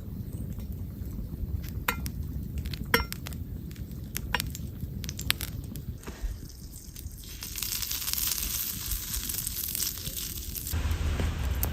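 Cookware clinking and clicking a few times over a log stove, then a sizzling hiss of cooking food for about three seconds near the end, with a steady low rumble from the fire underneath.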